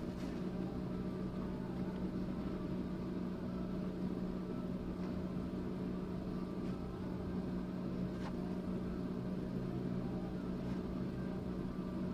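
A steady, unchanging low machine hum with a few faint clicks.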